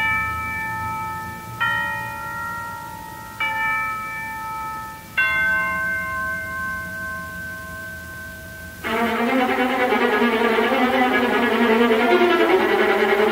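Symphony orchestra playing: four struck bell tones, each ringing out and fading, about every second and a half to two seconds. About nine seconds in, the strings come in loudly with a dense bowed texture.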